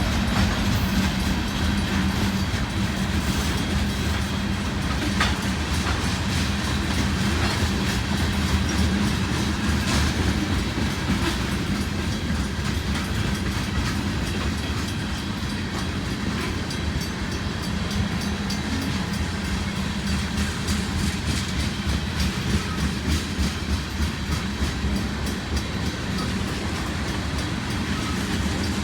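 Freight train rolling past: a steady rumble of railcars, with the rhythmic clickety-clack of wheels over rail joints growing clearer in the second half.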